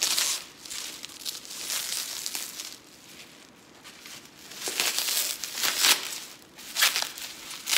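Bubble wrap crinkling and rustling in irregular bursts as it is handled and pulled off a chrome motorcycle crash bar, loudest in the second half.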